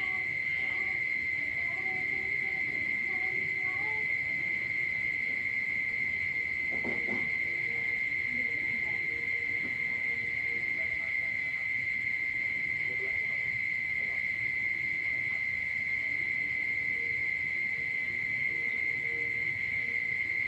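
Night chorus of calling frogs and insects: an unbroken, steady high-pitched trill, with faint lower calls coming and going beneath it and a brief louder sound about seven seconds in.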